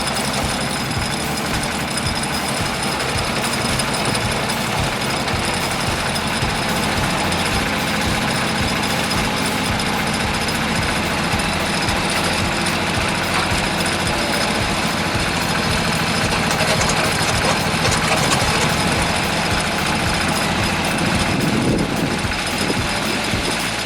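An engine-driven machine running hard with a fast, rough mechanical chatter over a steady engine note.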